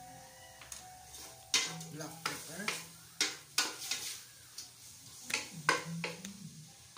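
Wooden spoon stirring cubes of pork belly in a stainless steel pot, scraping against the pot in about ten quick, irregular strokes, over the sizzle of the meat frying in oil.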